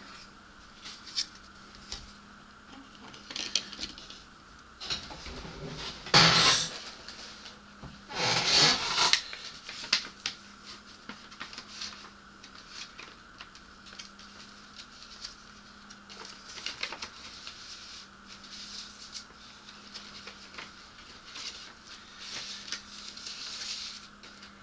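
Plastic model-kit parts being handled and set down on a cutting mat: scattered light clicks and knocks, with two louder rustling scrapes about six and eight and a half seconds in.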